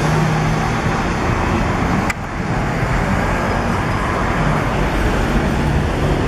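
Steady road traffic noise on a busy city boulevard: cars running past in a continuous rumble and hiss. A single sharp click comes about two seconds in.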